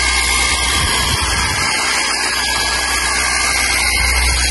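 Cordless brushless Hydroshot jet washer running with the trigger held on its wide 40 fan setting: a steady hiss of the water spray hitting the motorbike and wet path, over the low hum and high whine of the pump motor.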